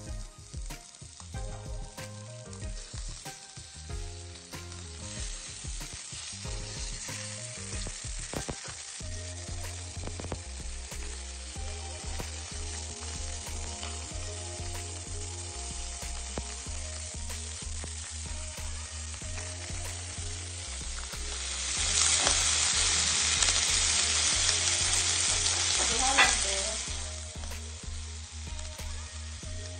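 Whole fish frying in hot oil in a stainless steel pan, a steady sizzle. The sizzle swells much louder about three-quarters of the way in for some four seconds, then settles back.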